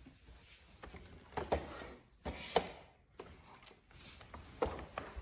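A robot vacuum being handled: scattered soft clicks, knocks and rubbing, a little louder about one and a half, two and a half and four and a half seconds in.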